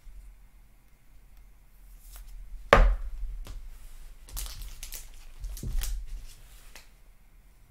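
A sleeved trading card being slid into a rigid plastic top loader and handled, with scraping and rustling of the plastic. A sharp knock about three seconds in is the loudest sound, and a smaller knock comes near six seconds.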